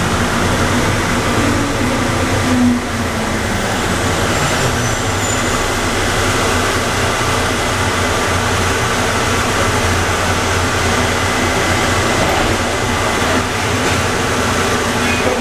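Atlanta airport Plane Train, a rubber-tyred automated people mover, running: a steady rumble and hum of the moving train, with a humming tone that falls in pitch over the first few seconds.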